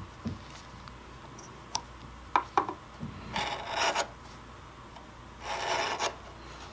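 Wood chisel paring the end of a thin kumiko strip held in a trimming jig. A few light clicks come first, then two slicing strokes of about half a second each, roughly two seconds apart.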